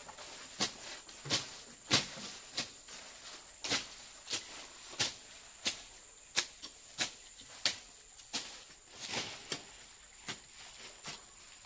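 A steady series of sharp knocks or steps, about three every two seconds, over a thin, steady high-pitched whine.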